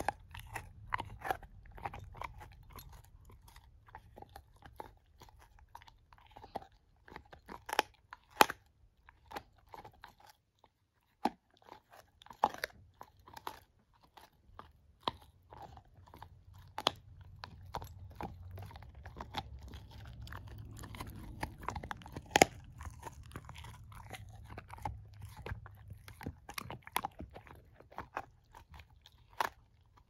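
Shepherd-mix puppy gnawing on a chew bone: irregular sharp crunches and bites with wet chewing between them, with a short pause about ten seconds in.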